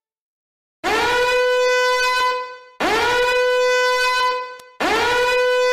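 Three long horn blasts starting about two seconds apart, each sliding quickly up in pitch and then holding one steady, bright tone: an alarm-like sound effect under a spoiler warning card.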